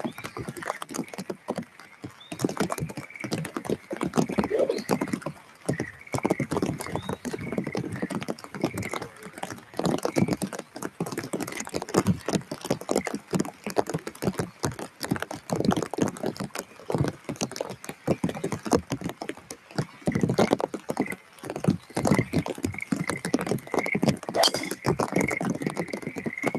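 Rain pattering in dense, irregular ticks close to the microphone, with a repeated high-pitched call in the background that grows stronger near the end.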